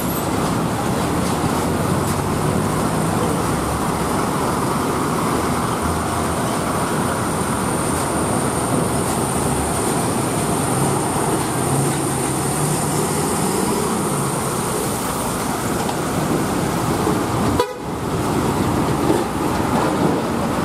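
Heavy loaded lorries creeping past in a slow line of traffic: steady diesel engine and road noise, with horn toots. The sound cuts out for a moment near the end.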